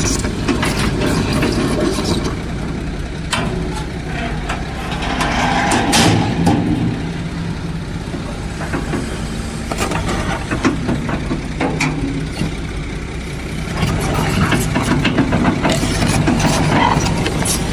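Heavy diesel engines of a crawler excavator and a truck running steadily, with scattered clanks and knocks on top, the loudest about six seconds in.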